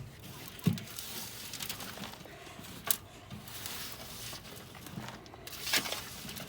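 Soil being dug and rummaged through during a potato harvest: a low, uneven rustling and scraping, with three sharp knocks spread through.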